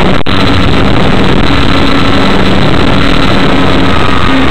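RC model airplane's electric motor and propeller heard from a camera on board in flight, a loud, distorted rush of propeller and wind noise with a thin high whine that drifts slightly lower. The sound drops out for an instant just after the start.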